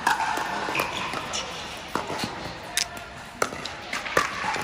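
Pickleball paddles hitting the ball in a doubles rally: a quick series of sharp, hollow pocks, about one every half second to second.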